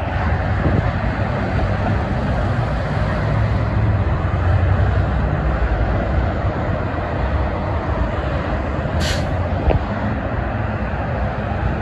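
Steady traffic noise of a busy multi-lane freeway: semi-trucks and cars passing, with tyre noise and a low engine rumble. A brief sharp hiss comes about nine seconds in.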